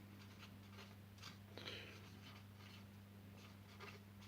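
Faint scratching of a pen on paper in short strokes, over a low steady hum.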